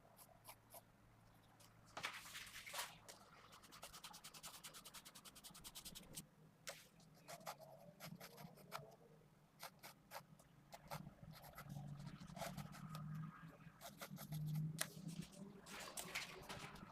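Mechanical pencil with 0.5 mm 2B lead scratching on paper in short, quick sketching strokes, with a dense run of rapid strokes about two seconds in.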